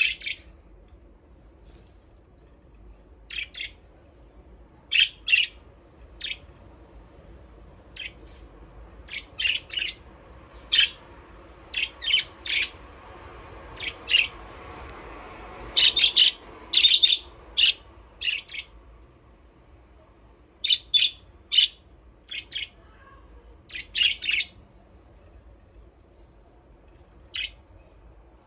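Budgerigars chirping: short, sharp, high chirps, often in pairs or quick runs of three or four, scattered irregularly, over a faint steady low hum.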